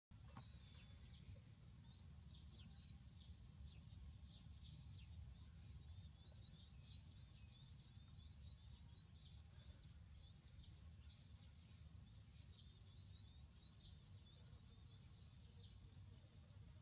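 Faint, high chirps of small birds: many short calls, one after another, over a low steady background rumble.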